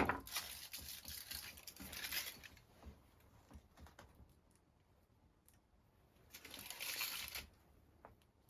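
Close rustling and scraping with small clicks, in two bursts: a longer one at the start and a shorter one about six seconds in.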